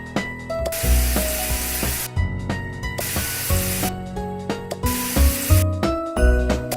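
Upbeat background music with a bass line and short bright melody notes, overlaid by a hissing noise swell about a second long that repeats roughly every two seconds.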